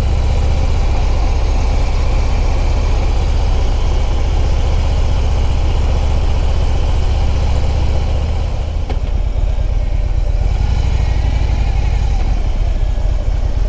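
Harley-Davidson touring motorcycle's V-twin engine running at low road speed, a steady low rumble with wind noise over it; the engine note eases briefly about eight seconds in, then picks back up.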